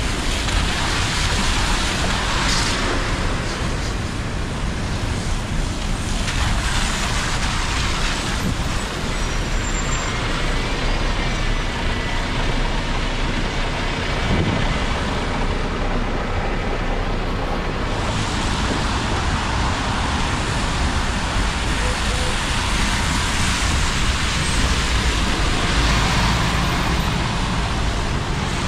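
Traffic on a rain-soaked city street: buses and cars passing, with their engines rumbling and their tyres hissing on the wet road. The hiss swells each time a vehicle goes by, and an articulated city bus passes close about halfway through.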